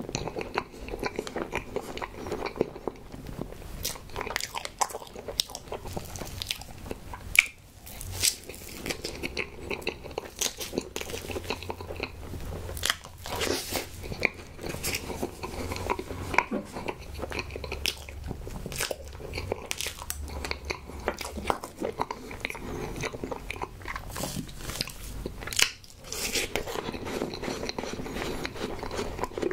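Close-miked chewing of a soft strawberry cream dessert: a steady run of many small mouth clicks with no pauses longer than a moment.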